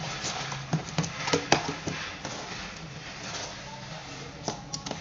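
Handling noise from sensor soap dispenser parts (chrome spout, cables and packaging) being moved about in a cardboard box, with rustling and a handful of sharp clicks and knocks.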